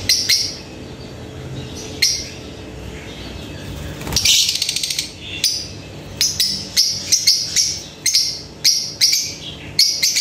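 Young lovebirds in a wire cage chirping with sharp, high calls. The calls are sparse at first, come in a quick run about four seconds in, then follow several a second.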